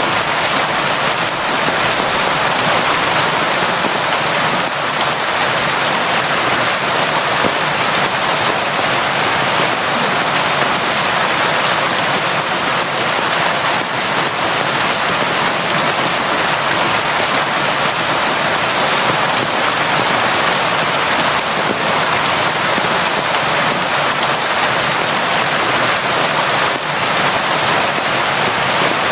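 Steady, constant rain, an even hiss of falling drops with no let-up.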